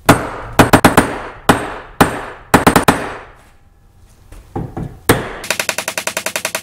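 Hammer blows on a steel wedge in the eye of a hatchet head, driving it down into the wooden handle: sharp, ringing metal strikes, some single and some in quick groups of two or three. A short quiet pause follows, then a few softer knocks, and near the end a fast, even run of many rapid strikes.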